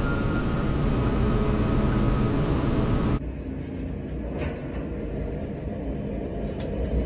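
Steady mechanical rumble and noise inside the operator's cab of a Panamax container crane. About three seconds in it drops abruptly to a quieter, duller low rumble with a few faint clicks.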